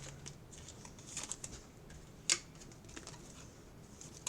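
Faint rustling and clicking of baseball card packs and cards being handled and sorted, with one sharper click about two seconds in.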